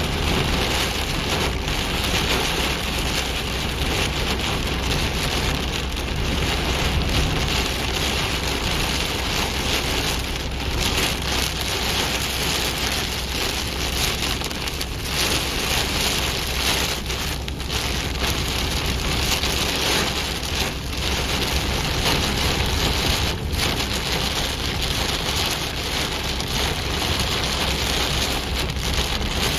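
Heavy rain pelting a moving car's windshield and roof, a dense steady hiss, over a low steady road and engine rumble heard from inside the cabin.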